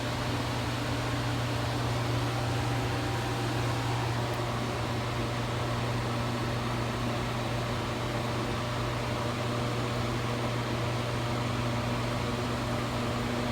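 A steady, unchanging machine hum with a low drone and a few fainter higher tones.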